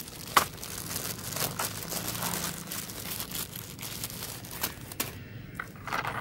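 Plastic wrapping of a pack of sparklers crinkling and rustling as it is handled and opened, with a sharp click about half a second in.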